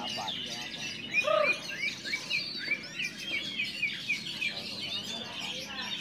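Many caged oriental magpie-robins (kacer) singing at once: a dense chatter of overlapping chirps and whistles, with a run of quick falling notes and one loud, lower arching note about a second in.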